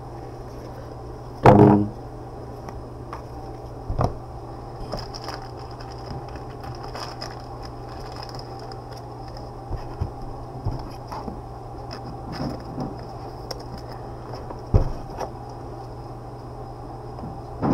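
Steady low electrical hum, with a scattered handful of light taps and scrapes; the sharpest tap comes about three-quarters of the way through.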